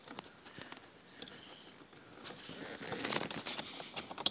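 Hands fumbling with a small plastic plug-in car diagnostic adapter at the OBD-II port under the dashboard: faint rustling and small plastic clicks, with a sharper click near the end.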